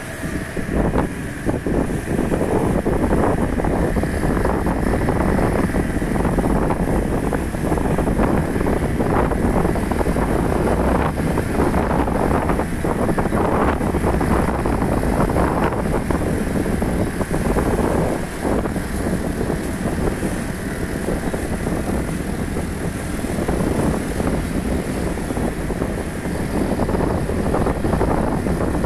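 Wind rushing and buffeting on the microphone over a low vehicle rumble while moving along a road.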